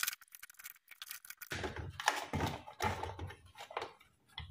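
Irregular scraping, clicking and rustling of plastic and metal as a mini-split AC control board is pried out of its housing with a flat tool. The sounds start about a second and a half in.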